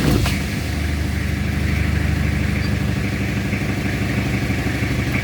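Toyota Kijang Kapsul diesel engine just after firing up, settling within the first moment into a steady idle.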